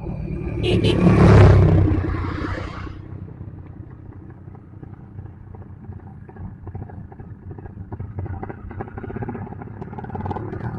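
Motorcycle engine, loud for about the first two seconds and then settling to a quieter, steady run with a fast pulsing beat.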